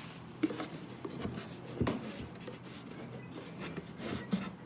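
A wooden chest being slid out of its cardboard shipping box: rubbing and scraping with a few light knocks of wood.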